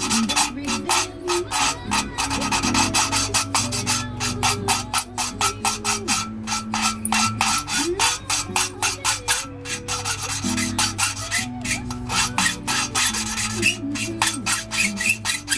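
An engine valve being hand-lapped into its seat in a cylinder head: the lapping stick is spun back and forth between the palms, grinding the valve face against the seat through lapping paste in a fast, gritty rasp of several strokes a second.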